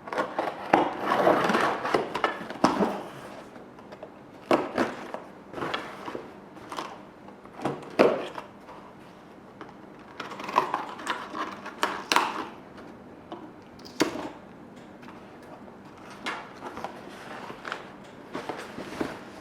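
Unpacking an RC airplane kit: rustling of packaging with scattered sharp clicks and knocks as parts are handled, and two longer stretches of rustle about a second in and about ten seconds in.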